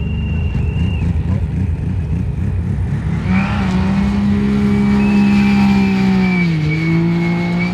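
Rally car engine driven hard: a low rough rumble with fast pulses, then from about three seconds in a loud, steady high-revving note that dips in pitch about six and a half seconds in and holds at the lower pitch.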